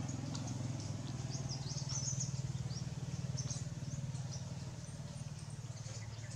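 A steady low mechanical hum, like a motor running, with small birds chirping in short high calls on and off above it.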